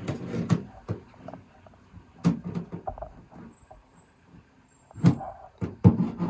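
Small metal hand roller pressed and rolled over a foil-faced sound-deadening pad on a van's thin sheet-metal door panel, making quick knocks, rubs and panel thumps in three short spells.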